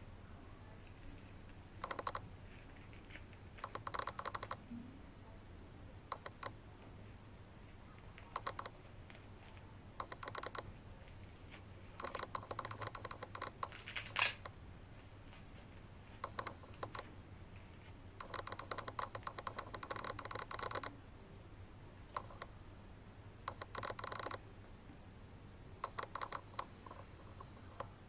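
Short bursts of fine crinkling clicks every couple of seconds, with one sharper click about halfway through, as the thin protective plastic film is picked off a Blythe doll with a small tool.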